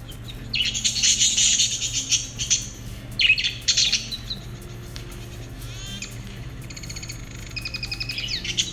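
Lovebirds calling and chattering: a burst of loud, high-pitched calls about half a second in lasting some two seconds, another short burst a second later, then quicker, rapidly repeated chirps near the end.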